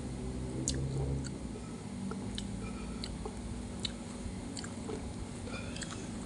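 Close-miked chewing of battered, deep-fried food: wet mouth sounds with scattered sharp clicks and small crunches.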